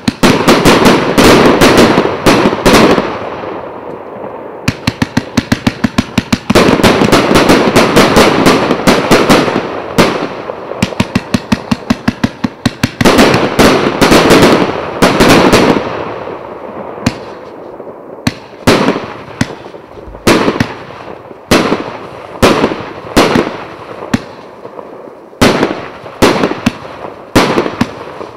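Fireworks cake, a 250-shot fan battery of 1-inch to 1.25-inch shells, firing rapid volleys of shots with bursts overhead. After about 17 seconds it eases into single shots roughly once a second.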